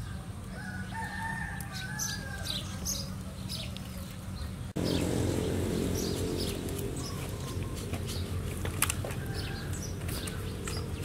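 Outdoor background sound: a steady low hum with short high bird calls over it. About five seconds in the background changes suddenly and grows louder, with a denser pitched layer.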